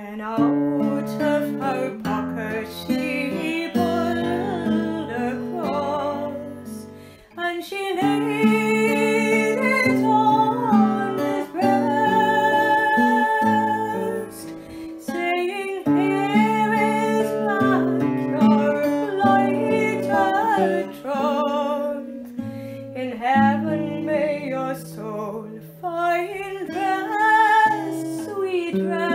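Acoustic folk ballad music: a plucked string instrument playing chords under a wavering melody line with no sung words, the instrumental close of the song.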